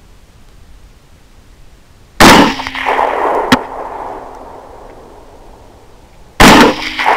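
Two rifle shots about four seconds apart, each followed by a long rolling echo, with a sharp click about a second after the first shot.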